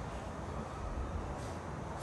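Steady low background rumble, with a faint brief rustle about one and a half seconds in as a lipstick is handled over the foam insert of a makeup gift box.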